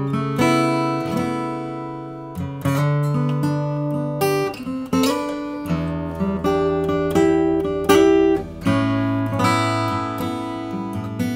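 2011 Gibson J-60 acoustic guitar played with a flatpick: strummed and picked chords with ringing bass notes, the chord changing about every second.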